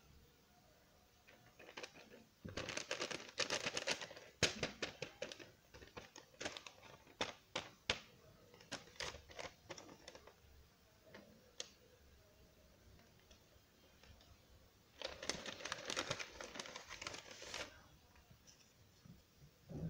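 Paper rustling and crinkling as a handmade paper blind bag is handled and opened: a dense burst of crackling a few seconds in, then scattered sharp paper snaps and clicks, and a second dense burst about three-quarters of the way through.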